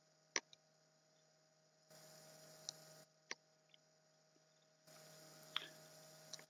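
Near silence: a faint steady electrical hum, broken by a few short, quiet clicks.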